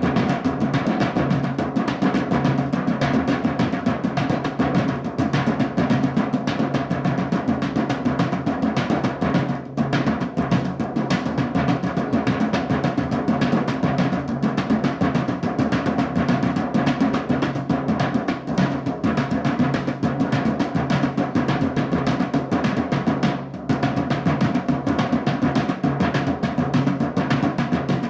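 Drumming music: a fast, continuous run of drum strikes.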